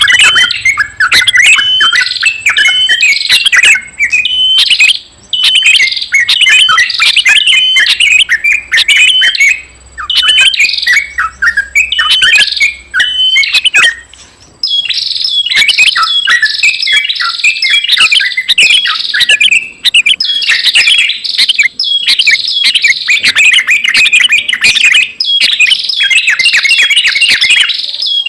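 Small birds chirping and calling in a dense, rapid chatter with only brief pauses, growing busier and higher-pitched about halfway through. This is a bird-lure recording used to draw small birds in.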